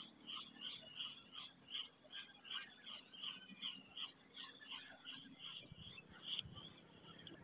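Spinning reel being cranked to retrieve a lure: a faint, rhythmic scratchy ticking about three to four times a second that stops about six seconds in.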